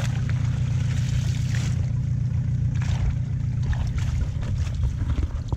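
A steady low motor drone runs throughout, with a few brief splashes and swishes of water as a wet fishing net is pulled up through it.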